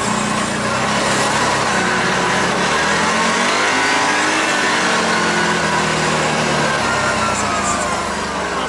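Vehicle engine running under way, its pitch dipping and then rising again as it slows and picks up speed, with road and wind noise.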